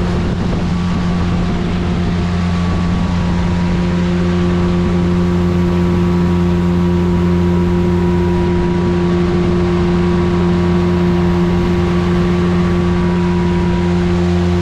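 Speedboat engine running at a steady drone over an even rushing hiss, growing slightly louder about four seconds in.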